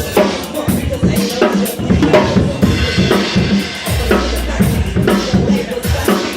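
A hip hop drum beat with kick and snare, played loud, with a deep bass note held briefly about four seconds in.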